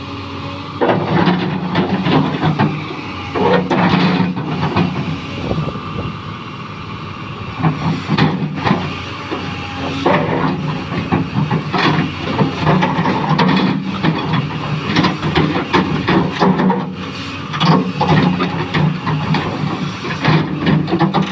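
XCMG 380 excavator's diesel engine working under hydraulic load, its note swelling and easing again and again as the machine digs and swings, with frequent knocks and clatter from the bucket and loading.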